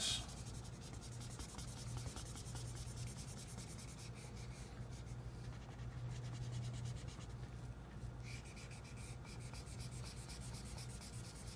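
Faint scratching of a felt-tip marker rubbed back and forth across sketch-pad paper, colouring in an area with quick repeated strokes.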